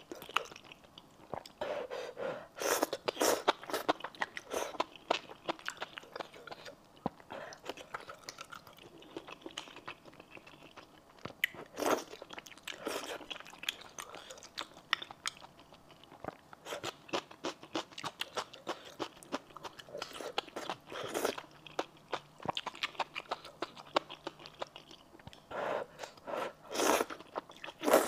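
A person chewing and crunching a mouthful of spicy noodles with bean sprouts and greens: short, irregular, wet crunches. A few louder ones come near the end as more noodles are slurped up from chopsticks.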